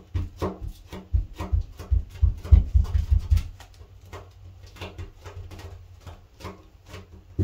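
Repeated dull knocks and light clicks as a gloved hand presses and works epoxy putty around a bathtub drain opening against the tub, thickest about one to three seconds in, over a faint steady hum.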